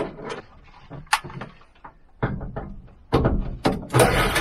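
Metal clicks and knocks as a homemade plusnut (rivnut) setting tool is fitted into the van's sheet-metal wall and tightened to set the nut: a few separate clicks at first, then denser, louder knocking and scraping from about halfway.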